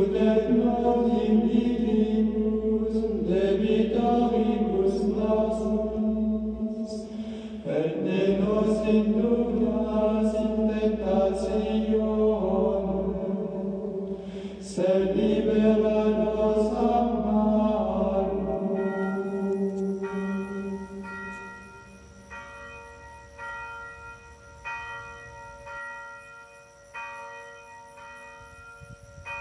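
Several voices singing Latin plainchant, then from about two-thirds of the way through, bells struck about once a second, each tone ringing on.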